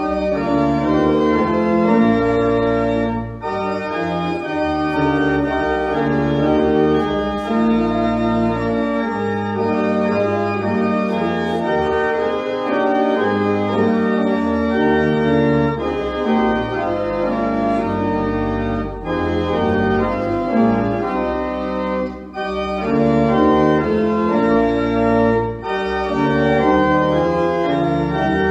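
Church organ playing sustained chords over long, low pedal notes, moving chord by chord with short breaks between phrases.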